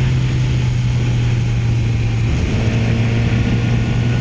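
Motorcycle engine running steadily while riding, with wind and road noise; the engine note changes slightly a little over halfway through.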